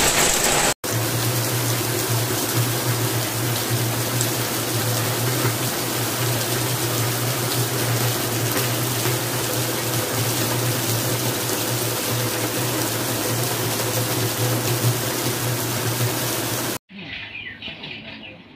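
Heavy rain mixed with hail falling as a loud, steady hiss, with a steady low hum underneath. Near the end it cuts abruptly to much quieter rain.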